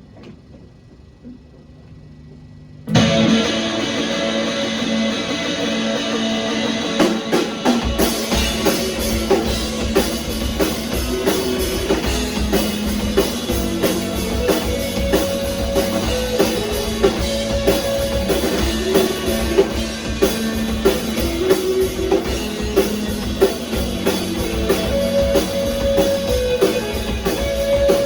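Rock music: after a brief quiet pause, guitar comes in suddenly about three seconds in, and a drum kit joins with a steady beat about five seconds later.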